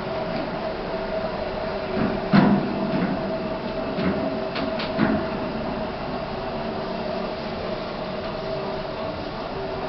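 Otis Gen 2 lift in motion: a steady hum from the car as it travels, with a knock about two and a half seconds in and a couple of clicks near five seconds.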